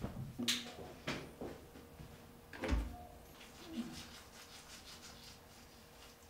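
A few rustles and knocks, the loudest a low thump a little before the middle, then a manual toothbrush scrubbing teeth in quick, even strokes.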